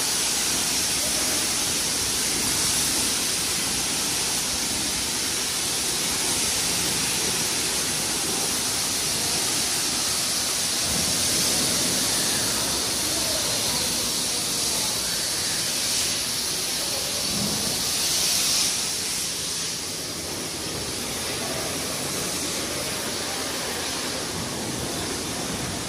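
High-pressure washer jet hissing steadily as water is sprayed onto a car, easing off somewhat about twenty seconds in.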